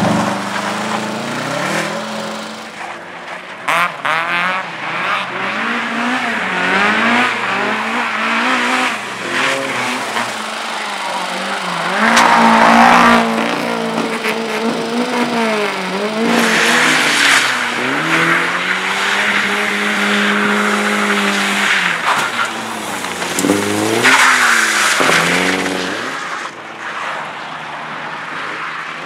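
Race car engine driven hard through a slalom course, revving up and dropping back again and again as the driver accelerates, lifts and shifts gears, with some tyre noise; the loudest pulls come about twelve seconds in and again near twenty-four seconds.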